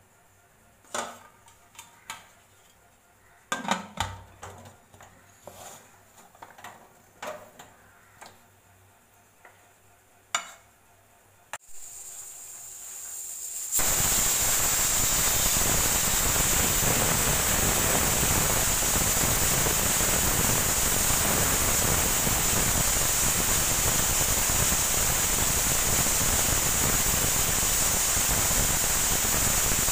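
Aluminium pressure cooker lid and pan giving a run of sharp metal knocks and clicks as the lid is fitted and closed. A click comes near the middle, and from about halfway through a loud, steady rushing hiss starts and holds to the end.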